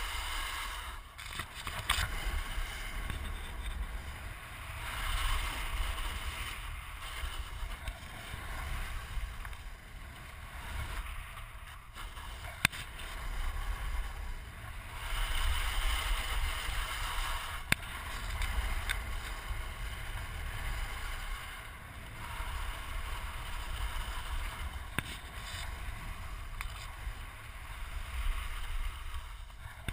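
Snowboard sliding and carving down a snow slope, the hiss of the board on snow swelling and fading with each turn, over a low rumble of wind on a helmet-mounted camera's microphone. Two sharp clicks partway through.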